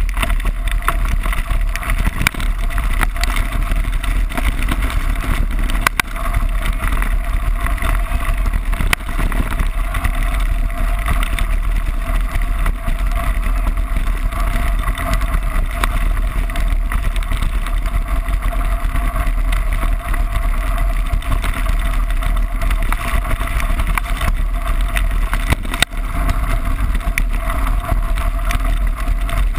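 Steady rumble and rattle of a mountain bike rolling fast down a loose gravel track, heard through a bike-mounted camera, with wind rushing over the microphone and scattered sharp knocks from bumps.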